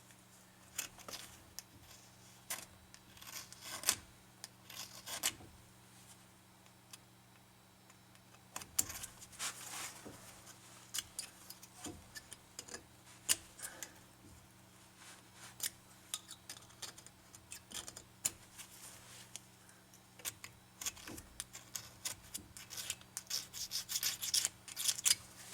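Irregular scraping and rubbing strokes of a hand tool cleaning paint residue left by the brake pads off the brake caliper parts, coming in clusters with short pauses.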